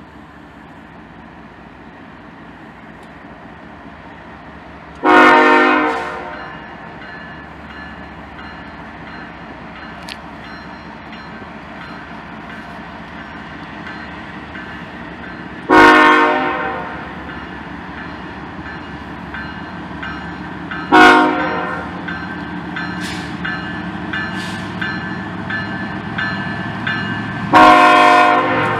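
A BNSF freight locomotive's air horn sounding the grade-crossing signal: two long blasts, one short, then a long one starting near the end, as the train nears the crossing. Beneath the horn, the rumble of the diesel locomotives and wheels grows steadily louder as they approach.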